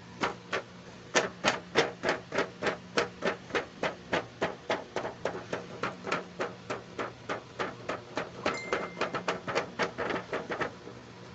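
Fingers tapping rhythmically on a doll's cardboard box and its clear plastic window, about three crisp taps a second, stopping shortly before the end.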